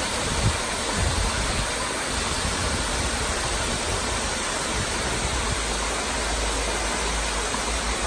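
Tiered waterfall cascading over rock ledges: a steady, even rush of falling and splashing water. A short low bump about half a second in.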